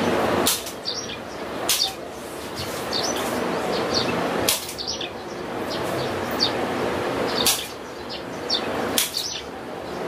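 Birds chirping outside, with about five short, sharp rasping noises a second or more apart as a mosquito net is fitted and pressed along a window frame by hand.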